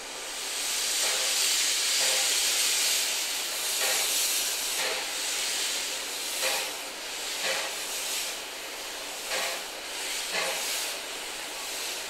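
Small steam tank locomotive moving off slowly with its cylinder drain cocks open: a loud hiss of escaping steam, then slow exhaust beats about once a second, each with its own burst of hiss.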